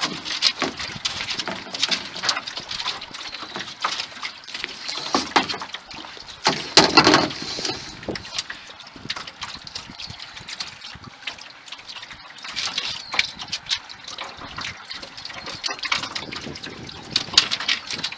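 Lake water splashing and lapping against the hull of a small boat, in irregular small splashes, loudest about seven seconds in.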